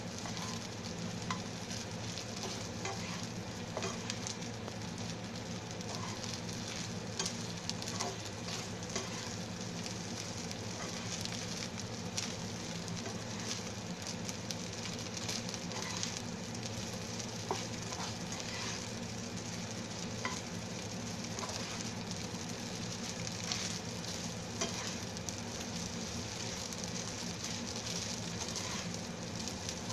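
Fried rice with beef and broccoli sizzling in a frying pan while a spatula stirs and tosses it, with frequent short clicks and scrapes of the spatula against the pan.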